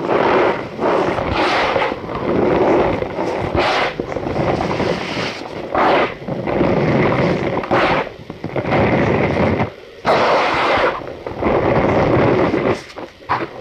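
Cornstarch balls crushed and squeezed by hand, a string of squeaky crunching squeezes roughly one every second or so.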